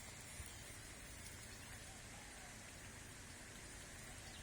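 Faint, steady outdoor background hiss, with distant voices faintly heard.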